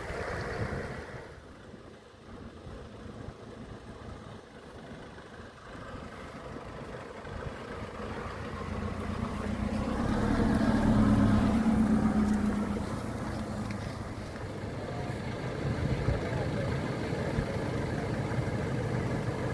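Nissan 4x4 engines running on a dirt trail. The loudest stretch is a Nissan Pathfinder R51 driving close past, about ten to twelve seconds in, with a strong low engine hum. People are talking in the background.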